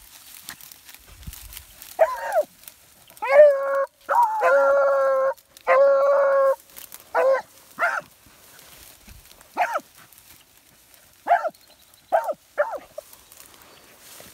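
Scent hounds giving mouth on a trail: a run of short barks and two drawn-out bawls, each held about a second, a little past the middle, with single barks spaced out near the end.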